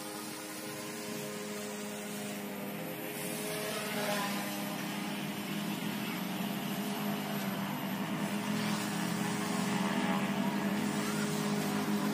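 M2 electric RC helicopter in flight: a steady whine of motor and rotor blades, its pitch shifting slightly as the throttle changes. It grows gradually louder as the helicopter comes down low over the grass.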